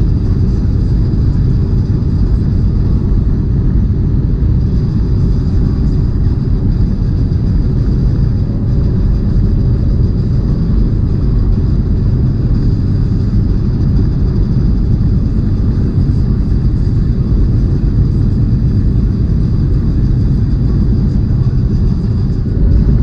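Steady low rumble of a semi truck's engine and road noise heard inside the cab while driving.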